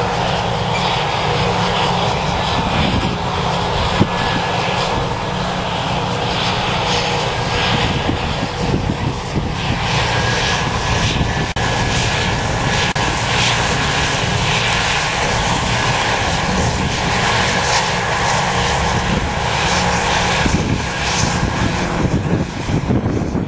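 Tractor diesel engine running steadily and loudly, a constant mechanical drone; a thin high whine joins about ten seconds in.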